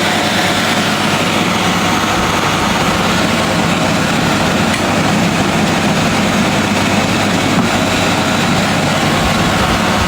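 Rebuilt Mercedes-Benz M274 alternator, with new bearings, spinning steadily on an alternator test bench during its output test: a loud, even running whir that keeps a constant speed.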